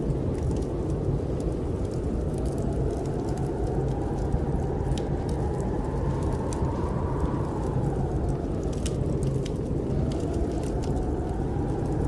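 Snowstorm wind blowing steadily with a howl that rises in pitch to a peak about halfway through and falls away again, over the crackle of a wood fire in a fireplace, whose scattered sharp pops come through the rumble.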